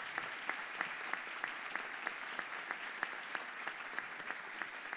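Audience applauding, a dense patter of many hands, with one nearby clapper's sharper claps standing out about three times a second.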